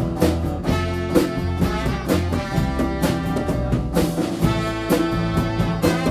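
Live band with a brass section playing an instrumental passage: horns holding sustained chords over a steady drum beat.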